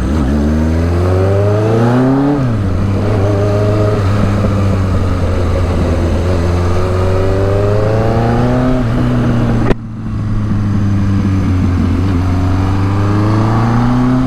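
1983 Suzuki GS1100E's air-cooled inline-four engine running. Its pitch climbs slowly and drops back about two seconds in, then climbs slowly twice more. There is a sharp click about ten seconds in.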